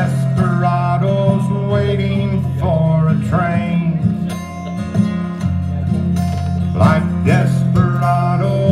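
Two acoustic guitars playing a slow country song, strummed and picked.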